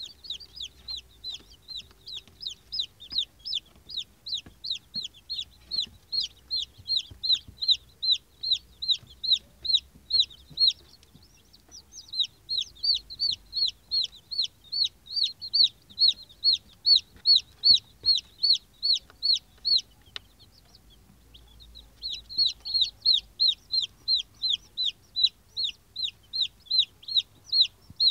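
Silver Laced Wyandotte chicks peeping: a long, regular string of high, falling peeps, about two to three a second, that breaks off briefly twice.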